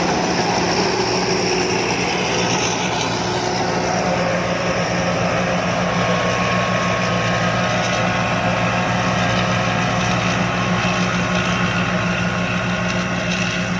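Rice combine harvester's diesel engine running steadily, with a constant low drone.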